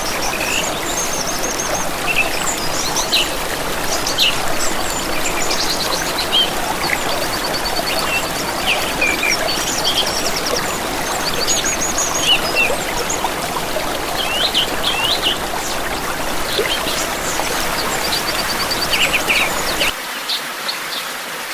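Several songbirds chirping and trilling over the steady rush of running water, like a stream. About 20 seconds in, the deep part of the water sound drops away while the birds go on.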